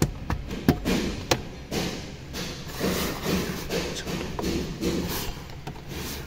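Plastic dashboard trim being pried with a thin metal pick: several sharp clicks and taps in the first second or so, then irregular knocks and rustling as the trim and the deployed airbag fabric are handled.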